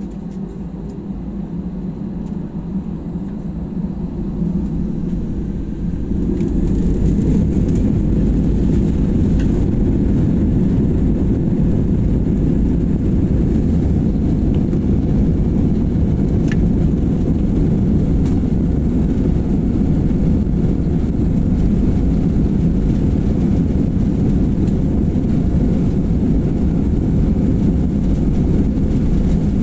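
Airliner engines and airflow heard inside the passenger cabin: a low rumble that builds over the first six seconds, then holds steady and loud.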